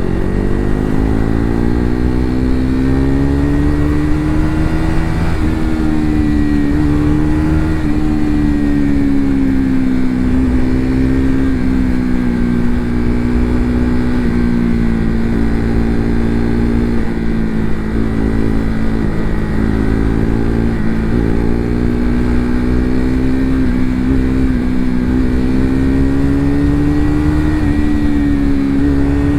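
KTM RC 390's single-cylinder engine running under way at a fairly steady cruise. Its pitch eases down a little through the middle and climbs again near the end.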